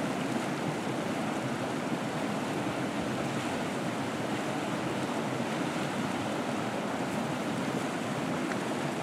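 Steady rush of a small creek flowing fast over shallow rapids, its water churning white.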